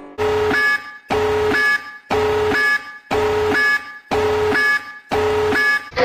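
Greek emergency alert tone: an electronic alarm beep repeating about once a second, six times. Each beep is a lower note that steps up to a short, higher note.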